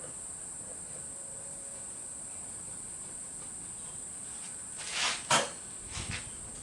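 A steady high-pitched hiss throughout; about five seconds in, a brief scraping rustle and a sharp metal knock, then a lighter knock, as clamps and a hedge trimmer blade are set on a workbench.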